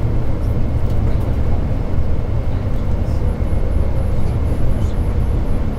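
Steady low rumble of a vehicle's engine and tyres as it drives along the road.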